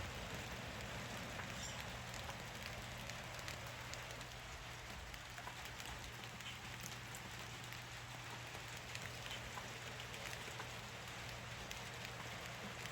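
Rain falling steadily, an even hiss scattered with many small ticks of drops landing.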